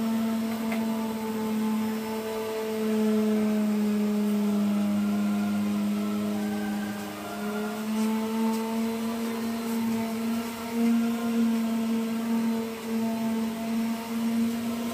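A small electric motor, such as a power tool, running steadily with a humming whine whose upper tones waver slightly.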